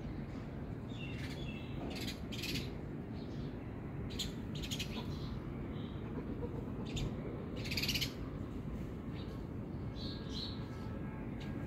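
Scattered short bird chirps over a steady low background noise, with a few brief crackles.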